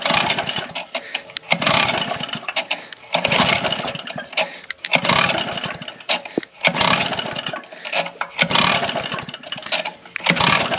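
Bed edger's small engine being pull-started again and again, about six or seven pulls of the recoil rope, each a brief whirring turn-over that never catches. The engine won't fire; the cause turned out to be bad gas.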